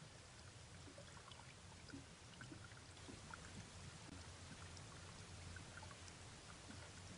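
Near silence: a faint steady hiss with scattered tiny clicks and a low hum underneath.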